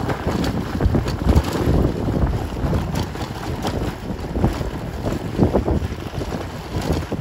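Riding pillion on a motorbike down a cobblestone street: wind buffeting the microphone over the rumble of the tyres, with frequent irregular jolts from the cobbles.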